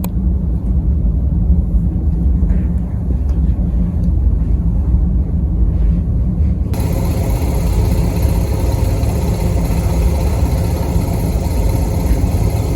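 Steady low rumble of a vehicle in motion, with a broader hiss joining abruptly about two-thirds of the way through.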